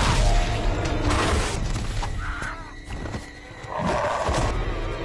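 Film fight soundtrack: music under heavy blows and rough yelling shouts.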